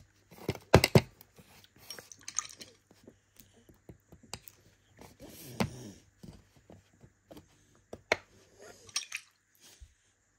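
Small hand tools scraping and tapping at a dinosaur dig-kit egg: irregular clicks and scrapes, with a few sharper knocks about a second in and again near the end.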